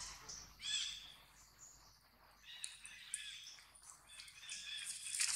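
High-pitched animal calls, a short series of arching squeaks near the start and another about halfway through. A rustling noise builds near the end.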